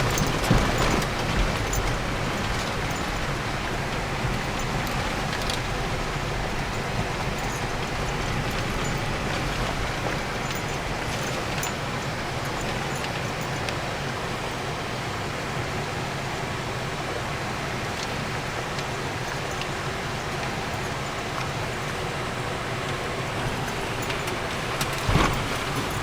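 A 4x4 vehicle driving offroad: a steady low engine drone under a continuous rushing noise from the tyres on the track, with a short knock near the end.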